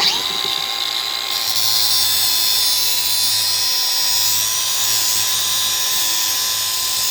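Handheld power cutting tool starting abruptly and quickly spinning up to a steady high whine, with a dense grinding hiss as it cuts into a Master Lock padlock to open it.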